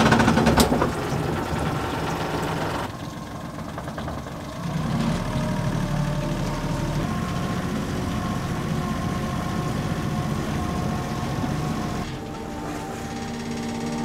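Pontoon boat's outboard motor running steadily at low speed, a constant low hum, with a single knock about half a second in.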